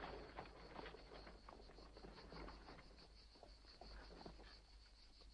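Faint clopping of a horse's hooves and carriage wheels on a dirt track, thinning out and fading within about four seconds as a horse-drawn carriage drives away. Under it, crickets chirp steadily at about five pulses a second.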